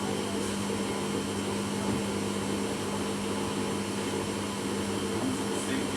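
Samsung washing machine running with a steady mechanical drone and a constant hum: the deafening noise the machine has been making.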